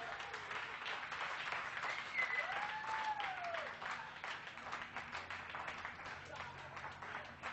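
A crowd applauding and cheering, with a voice or two calling out in long rising-and-falling whoops about two seconds in, where it is loudest.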